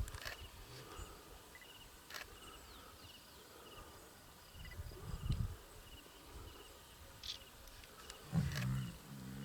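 Lion growling low: a short rumble about five seconds in, then a louder, wavering growl near the end. Faint, regular high chirps sound behind it.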